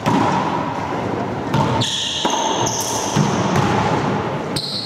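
Racquetball serve and rally in an enclosed court: the hollow rubber ball cracks off racquets, walls and floor several times with a reverberant echo, and sneakers squeak briefly on the hardwood floor.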